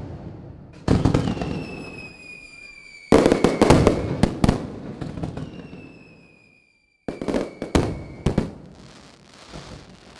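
Fireworks: sharp bangs in three clusters about one, three and seven seconds in, each fading out in crackle. Two long whistles slide slowly down in pitch over them.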